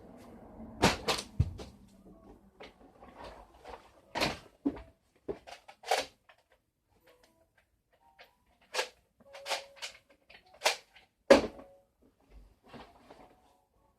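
Irregular knocks and clatters of hard objects being handled, moved and set down while rummaging for something. There are about a dozen sharp hits, the loudest about a second in and again toward the end, with quiet gaps between them.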